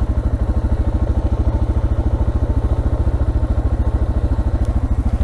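Single-cylinder motorcycle engine running at low, steady revs, its exhaust beat a fast, even pulse with no rise or fall.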